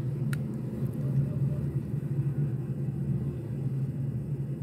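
Steady low hum, like a motor or appliance running, with one light click about a third of a second in.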